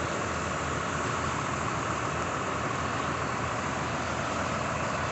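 Heavy truck's diesel engine running steadily, the truck hauling new tractors on a lowboy trailer.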